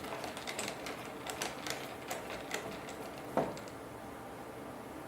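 Irregular small clicks and taps of a screwdriver working the screws holding down the top piece of a propane fuel lock-off valve, with one louder knock about three and a half seconds in.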